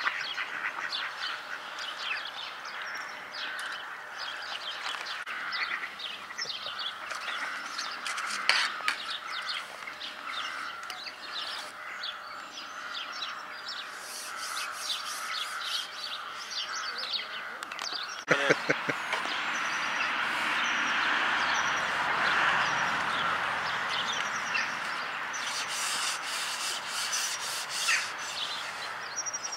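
Small birds chirping and singing, many short calls over a steady outdoor background. About 18 seconds in, the background changes abruptly to a louder, steady rushing noise, with the chirping still heard over it.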